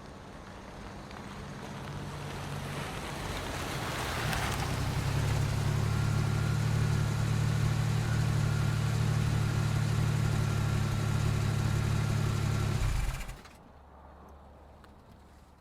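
A car pulling in: its engine grows louder as it approaches, then runs steadily for several seconds before cutting off suddenly near the end, as the engine is switched off.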